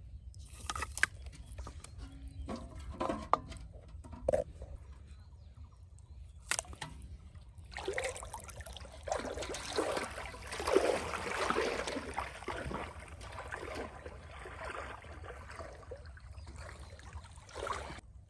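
Pond water splashing and sloshing: a few separate splashes and knocks at first, then continuous churning splashing from about halfway through.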